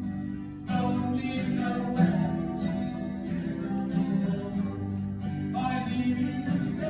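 Live acoustic guitar strumming with singing, a short pause in the vocal line at the start before the voice comes back in under a second in.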